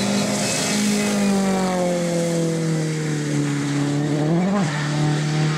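Rally car engine passing at speed on a wet road, its note falling steadily over about three seconds, with a quick blip of revs about four and a half seconds in before settling on a lower steady note. Hiss of tyres spraying water is strongest early on.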